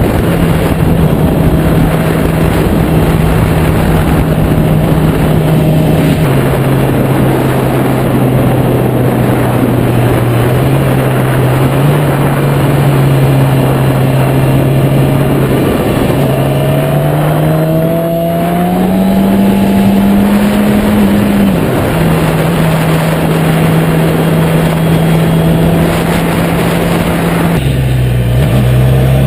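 Heavy wind noise buffeting the microphone, over a Yamaha YZF-R6's inline-four engine running at a steady cruise while it is being broken in. The engine note steps up and down with the throttle, climbing for a few seconds about two-thirds of the way through and then dropping back.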